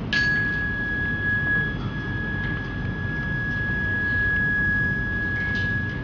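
A small handheld bell or chime struck once, ringing one clear high tone that fades slowly over several seconds. A brief knock comes about five and a half seconds in.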